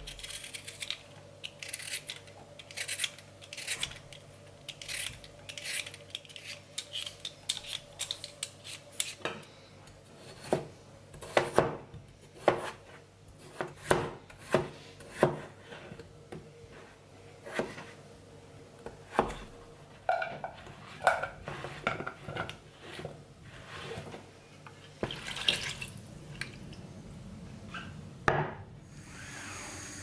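A knife cutting peeled potatoes on a plastic cutting board: sharp knocks of the blade on the board, many in quick runs and loudest through the middle, with clinks of kitchen utensils and dishes.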